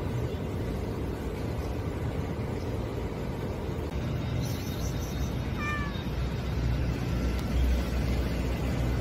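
A calico cat meows once, a short, falling call a little over halfway through, over a steady low background rumble.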